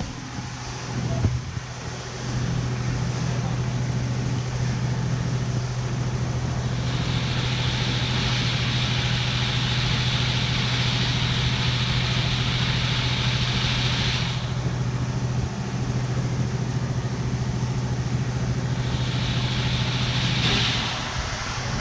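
An engine running steadily with a low, even hum. A high hiss joins it for several seconds in the middle and briefly again near the end.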